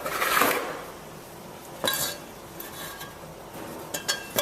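Sheet metal of a stainless steel milk tank being handled: a scrape at the start, a sharp clank about two seconds in, and two more clanks with a brief metallic ring near the end.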